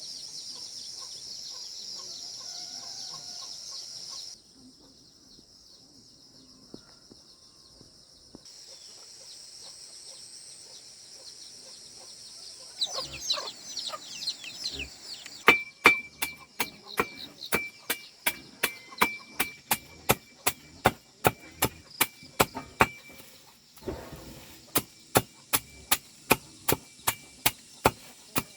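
Steady high-pitched buzzing at first, then, from about halfway through, sharp chopping strokes into wood at about two a second, pausing briefly once; the chops are the loudest sound. Chickens are heard just before the chopping starts.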